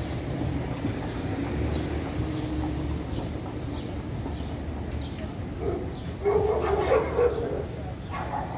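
Steady low rumble of street traffic, then a dog barking in several short, loud bursts over the last few seconds.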